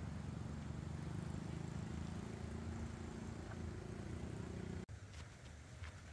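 Low, steady motor drone that cuts off suddenly about five seconds in; faint clicks and taps follow.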